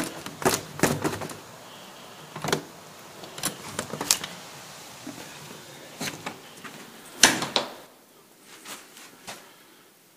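A door being handled, its knob turned and the door pushed: a series of sharp knocks and clatters, the loudest about seven seconds in, then a few fainter taps.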